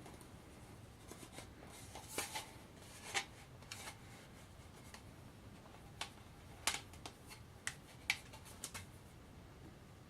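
Scattered light clicks, taps and rustles of something being handled by hand, with a few sharper clicks about two, three, seven and eight seconds in, over faint room tone.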